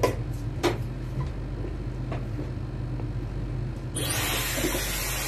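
A few knocks, then a handheld hair dryer switched on about four seconds in, blowing with a loud, steady rush of air.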